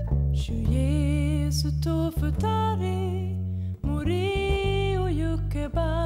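Slow gospel song sung by a woman with vibrato over an acoustic guitar accompaniment; the voice comes in just under a second in and holds a long note in the second half.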